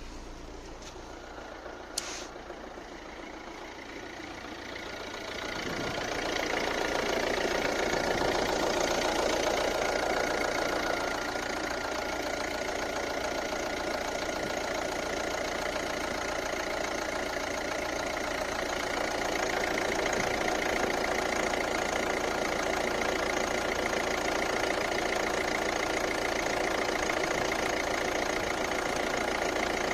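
Volvo C30 D2's 1.6 four-cylinder diesel engine idling from cold, with one sharp click about two seconds in; the engine sound grows louder about five seconds in and then runs steadily.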